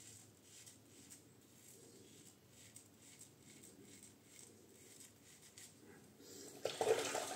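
Goodfellas Syntesi double-edge safety razor with a Kai blade scraping faintly through a three-week beard in short strokes, about two or three a second. Near the end, water starts running from the tap, much louder, as the razor is rinsed.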